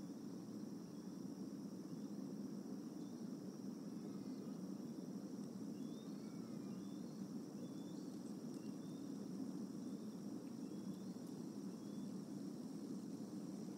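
Outdoor evening ambience: a steady high insect drone with short bird chirps scattered through it, over a steady low rumble.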